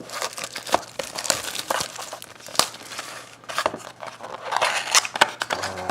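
Trading-card pack wrappers crinkling and crackling as baseball card packs are handled and opened, in irregular quick crackles.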